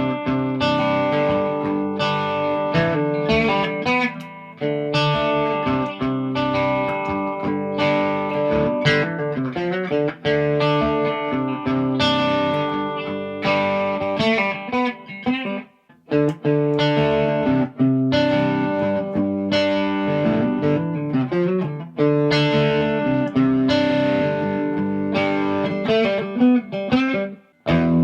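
Gibson Custom SG electric guitar being played in the condition it was in before its setup: chords strummed and picked in phrases. The playing breaks off briefly about four seconds in, again at about sixteen seconds, and just before the end.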